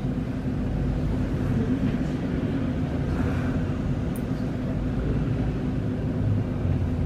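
Inside a stopped streetcar: a steady low hum from the tram's onboard equipment over a rumble of road traffic passing outside.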